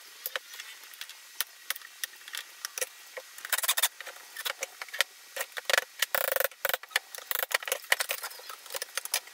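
Irregular clicks, taps and knocks of hand tools and loosened wooden boards as an old painted wooden Adirondack chair is taken apart, with a brief harsher scrape about six seconds in.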